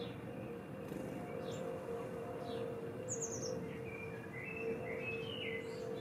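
Small garden songbirds calling: a few short falling chirps, then a quick run of about five very high notes about three seconds in, followed by a twittering phrase. A steady low hum runs underneath.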